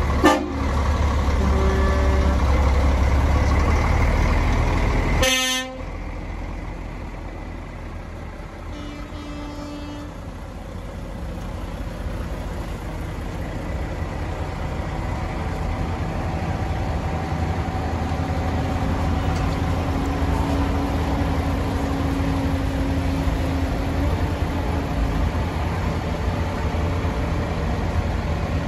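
Heavy diesel truck engines running as lorries drive past, loud for the first five seconds, then a single short air-horn toot about five seconds in. After that the engine sound drops and slowly grows louder again as the next truck approaches.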